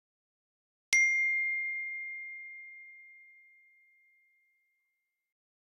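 Phone message notification chime: a single bell-like ding that rings out and fades away over about three and a half seconds.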